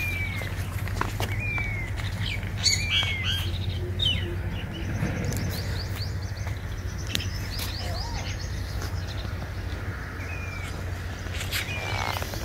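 Birds chirping: repeated short, falling chirps from several birds, over a steady low hum.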